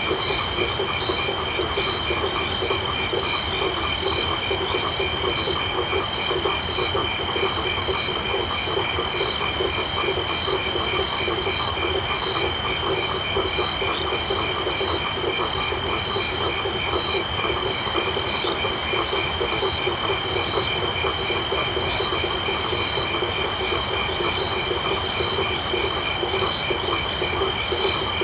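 Night chorus of frogs and crickets, dense and unbroken: rapid low frog calls under steady high insect trills, with a higher chirp repeating about once a second.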